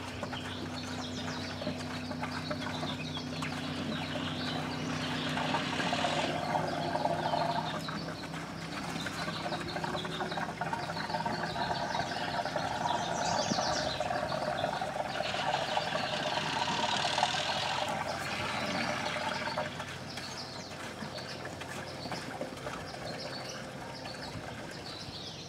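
Gasoline draining by gravity from an upturned gas can through a hose into a boat's fuel tank, rushing and gurgling, swelling and easing in waves and quieter for the last few seconds.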